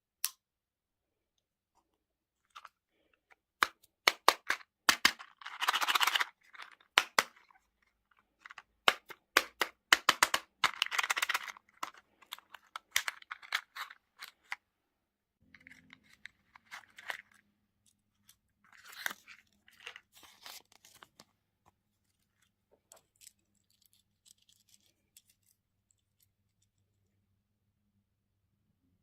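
Plastic candy and toy packaging being handled and opened: crinkling and tearing with many sharp clicks, densest in the first half. A faint low steady hum comes in about halfway through.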